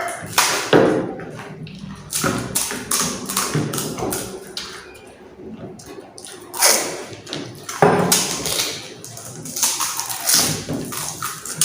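Pani puri being eaten fast: crisp puris cracking and crunching, with taps and knocks of plates, in irregular clusters of sharp clicks.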